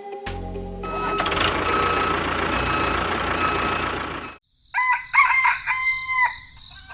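A steady, noisy rush for about four seconds that cuts off suddenly, then a rooster crowing.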